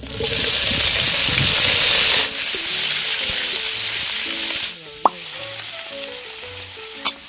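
Raw beef chunks hitting hot oil and sizzling loudly. The sizzle eases after about two seconds, drops again at about five seconds, and a couple of sharp knocks follow.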